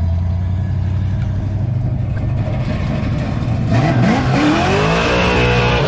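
Big-turbo Toyota Supra's 2JZ-GTE inline-six idling with a steady rumble, then revved about two-thirds of the way through. The engine speed climbs and holds high near the end.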